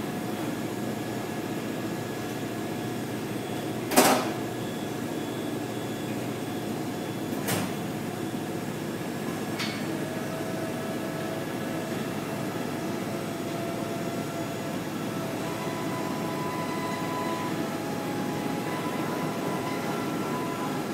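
Computer-to-plate platesetter and plate processor running with a steady mechanical hum as an offset printing plate is fed on the roller conveyor into the processor; a faint steady whine comes in about halfway. A sharp knock about four seconds in, then two lighter knocks a few seconds later.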